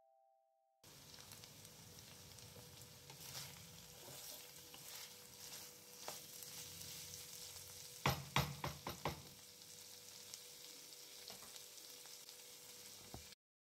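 Potato cubes in poppy seed paste frying with a faint, steady sizzle in a non-stick pan as they are stirred, with a quick run of sharp scrapes and knocks against the pan about eight seconds in.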